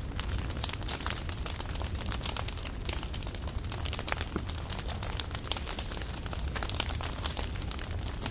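Firewood burning, crackling with frequent irregular sharp pops and snaps over a steady low rumble.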